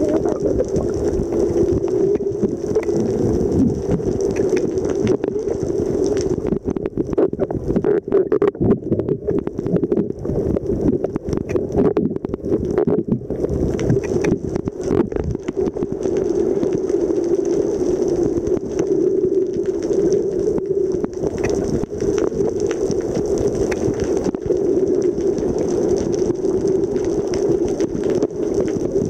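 Underwater noise picked up by a camera below the surface: a steady low hum with irregular crackling clicks over it.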